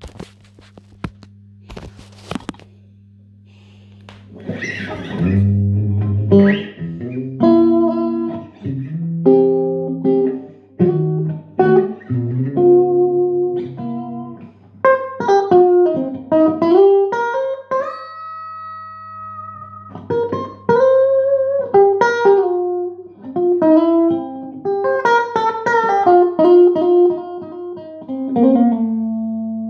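Electric guitar, a Stratocaster on its middle-and-bridge pickups, played straight into a 10-watt single-ended 5F2/6G10 tweed-style tube amp with two 8-inch speakers: loose single-note noodling with string bends and a note held for a couple of seconds. A few clicks come before the playing starts about four seconds in, and a steady low hum runs under it all.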